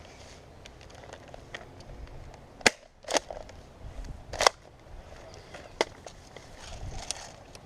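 Airsoft guns firing: a few sharp, single cracks at irregular spacing, the loudest a little under three seconds in and again about four and a half seconds in, over the crunch and rustle of footsteps on woodland ground.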